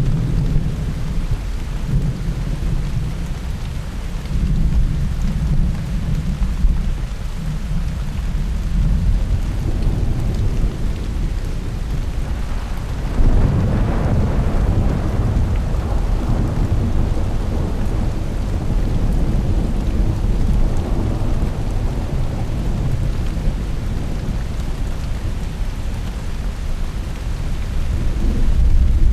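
Thunderstorm: steady rain with low rolling thunder, and a louder thunderclap about halfway through that rumbles away over several seconds.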